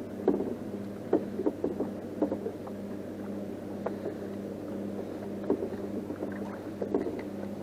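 Light clicks and taps from a spinning rod and reel being handled and reeled in, over a steady low hum that pulses faintly about twice a second.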